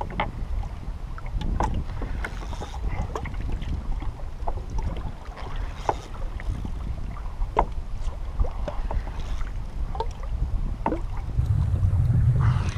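Wind buffeting the microphone and water slapping against the kayak's hull, with scattered small clicks and knocks. The wind gets louder near the end.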